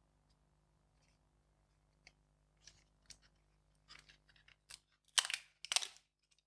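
Light clicks and small scrapes of hand tools working on the glued plastic parts of an opened iPhone XS Max battery case, then two louder scraping strokes about five seconds in.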